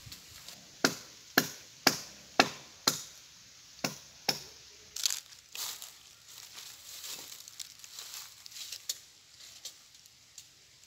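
A blade chopping into wood: a run of about seven sharp strikes, roughly two a second, over the first few seconds. These give way to lighter, scattered taps and rustling.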